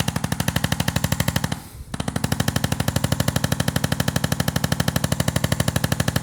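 Handheld percussion massage gun running against the body, a rapid, even hammering with a steady motor hum under it. It is briefly lifted off just under two seconds in, then carries on.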